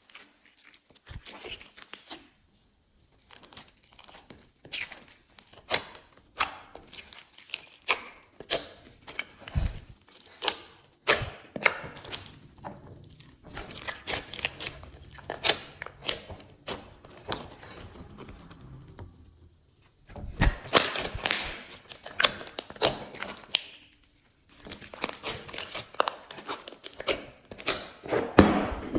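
Glossy slime being squished, folded and stretched by hand, giving irregular sticky crackles and pops, denser in runs about two-thirds of the way through and near the end.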